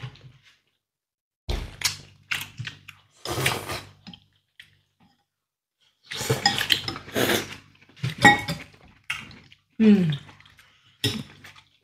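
Cutlery on ceramic bowls at a meal: chopsticks, spoons and a fork clinking and scraping against bowls of noodle soup in scattered short bursts, with brief gaps between.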